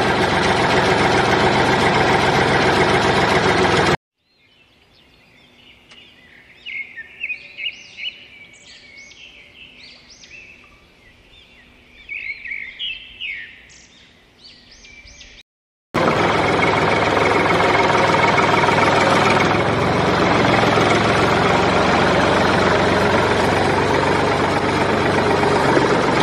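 A steady engine running, cut off abruptly after about four seconds. Birds chirping fill a quieter gap of about twelve seconds, then the engine noise cuts back in just as abruptly.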